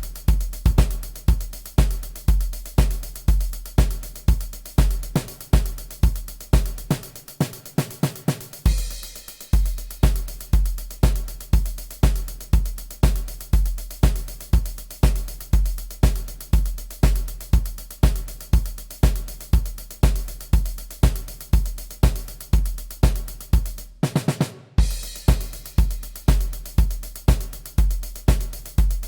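Electronic MIDI drum kit playing a steady rock beat, bass drum about twice a second with snare and hi-hat. A fill comes about eight seconds in, and a short break with a quick fill comes around twenty-four seconds.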